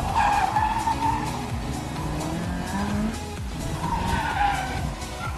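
Toyota 86's flat-four boxer engine revving as the car corners hard, its tyres squealing near the start and again about four seconds in.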